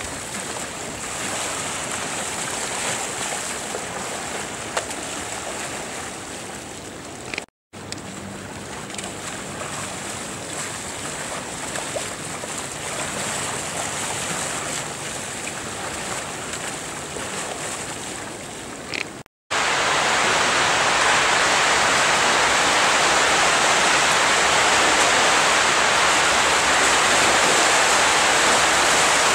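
Steady moving-water noise around a slalom kayak paddling through gates. After two brief cuts to silence, a louder, even rush of whitewater takes over for the last third.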